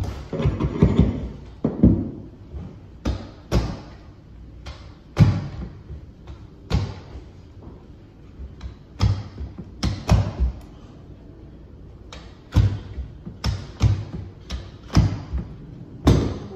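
Many sharp knocks and thuds at an irregular pace, from hand tools and hands working carpet onto stair treads during stair carpet installation.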